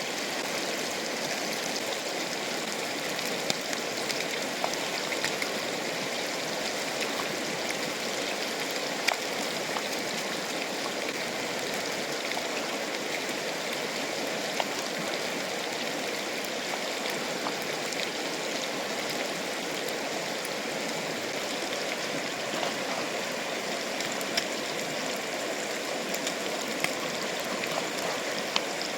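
Fast-flowing river rushing steadily, with a few sharp clicks scattered through it.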